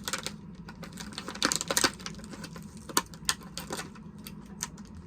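Small hard plastic action-figure accessories being handled: irregular clicks and taps, with a denser cluster about one and a half seconds in, over a steady low hum.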